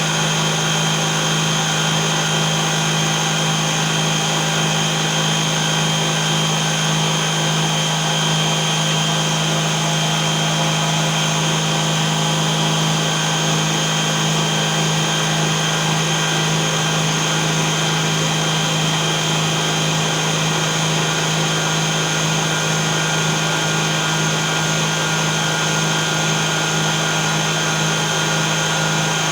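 Homemade table saw driven by twin 12 V DC 775 motors running steadily at constant speed, a steady whine that does not rise or fall.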